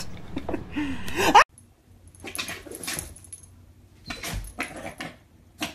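A person's voice, cut off sharply about a second and a half in, then a golden retriever and a fluffy puppy play-wrestling on an upholstered armchair: short bouts of scuffling and rustling against the fabric.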